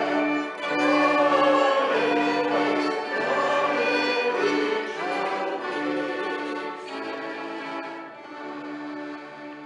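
Small ensemble of violin and accordions playing, the violin carrying a wavering melody over sustained accordion chords and bass notes that pulse on and off. The music grows quieter over the last few seconds.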